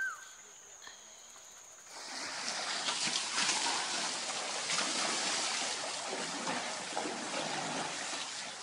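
Water splashing and trickling in a concrete tank as an Asian elephant bathes in it, starting about two seconds in and continuing steadily with small irregular splashes. A single short chirp sounds right at the start.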